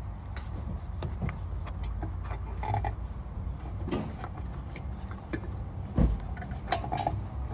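Small plastic and metal clicks and knocks of hands working a headlight bulb and its retaining clip in the headlight housing, with a louder thump about six seconds in and a short clatter just after, over a steady low rumble.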